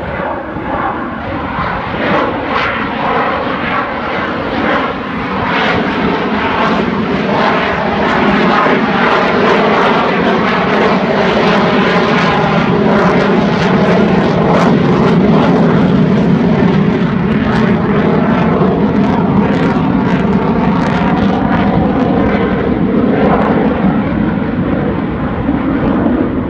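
Airplane engine running loudly and continuously, growing louder over the first several seconds and then holding steady.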